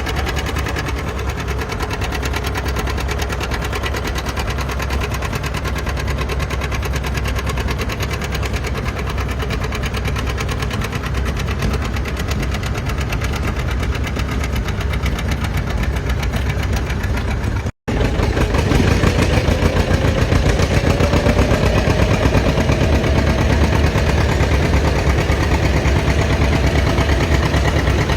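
Antique farm tractor engine running steadily. After a momentary cut, it comes back louder, its pitch climbing slowly.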